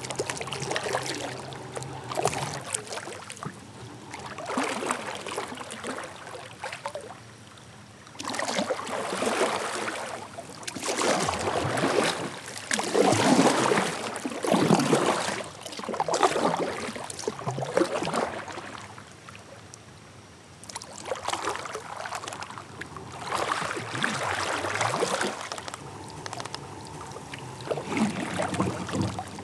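Kayak paddle strokes dipping and splashing through the water, one swell of water noise every second or two, with short pauses between runs of strokes.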